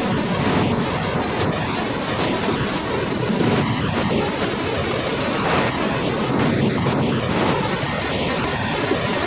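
Hydraulic log grapple crane working, its engine and hydraulics giving a steady loud machinery noise, with wind buffeting the microphone.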